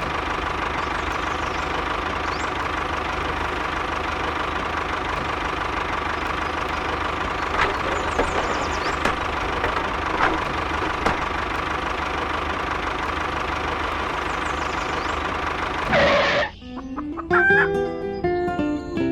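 A steady whirring with a held hum, like a small motor running, for about sixteen seconds; it then cuts off suddenly and gives way to music.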